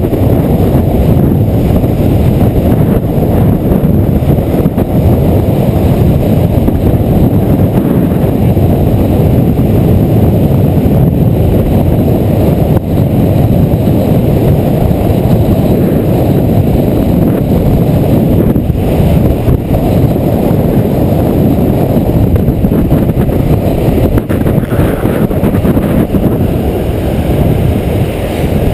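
Loud, steady wind rush buffeting the microphone of a camera moving fast downhill, mixed with the rumble of longboard wheels rolling on asphalt.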